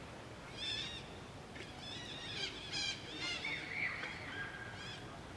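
A series of short, high-pitched chirping animal calls, some in quick runs, with a couple of longer held notes a little past the middle.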